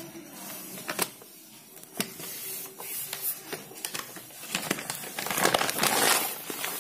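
Brown paper bag crinkling and rustling as a cat paws and pushes into it. There are two sharp ticks in the first couple of seconds, then louder, denser crinkling from about four and a half seconds in.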